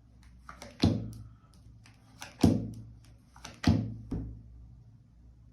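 Three sharp thumps on a tabletop, about a second and a half apart, with lighter clicks between them, as tarot cards are laid down on the table.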